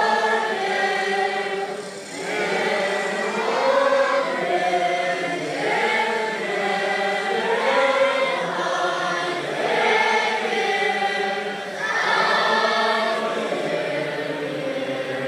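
A large crowd of Buddhist monks singing together in unison, a slow melody in phrases of about two seconds with brief breaths between them.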